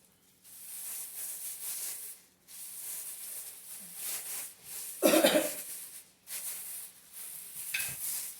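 A person coughs once, loudly and briefly, about five seconds in, between stretches of high, hissy rustling.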